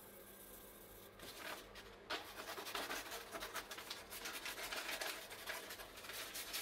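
Yellow transfer paper crinkling and rustling while it is cut with scissors, an irregular run of crackles and snips starting about two seconds in.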